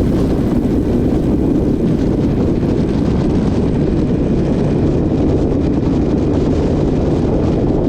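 Steady rush of wind on the microphone of a Ducati motorcycle riding at speed, mixed with its engine and road noise.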